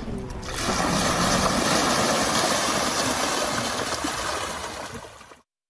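Steady rush of pouring, splashing water as a load of fish is released into the water. It fades and cuts off shortly before the end.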